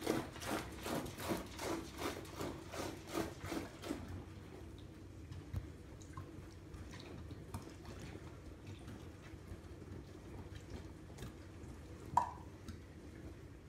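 Wort pouring from a plastic cube into a plastic fermenting bucket, splashed in to aerate it. It glugs about three times a second for the first four seconds, then settles to a quieter steady splash onto the foam, with a brief sharp sound near the end.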